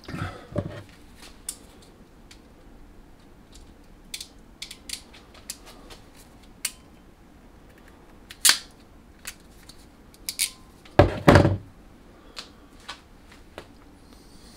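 Hand crimping pliers being handled and squeezed onto red insulated crimp terminals on a mains cable's wires: scattered sharp clicks and small taps, with two heavier thumps about eleven seconds in.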